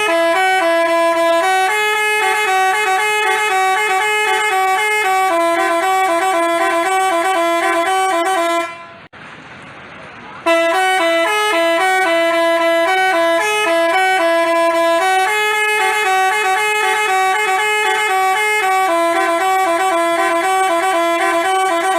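Basuri telolet multi-tone horn playing a quick, stepping melody of horn notes. It breaks off for about two seconds midway, then plays the same tune again.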